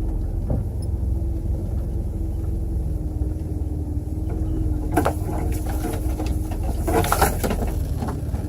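A vehicle's engine running at a slow crawl, heard from inside the cab as a steady low rumble with a constant hum. A few clattering knocks come about five seconds in and again, louder, about seven seconds in.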